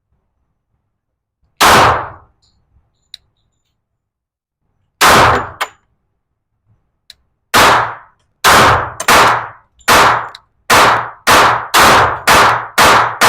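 Gunshots with short echoing tails, as heard on a shooting range. A single shot comes about a second and a half in and another about three seconds later, then a steady string of about seven shots roughly one every half second to second.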